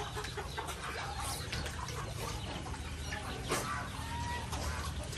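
Farmyard animal calls: a steady run of short clucking calls, with a couple of brief higher whistled chirps near the end, over a steady low rumble.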